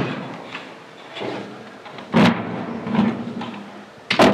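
Steel security grille door and its lock clanking and rattling as it is worked, with a few separate knocks and a sharp bang near the end as the grille is shut.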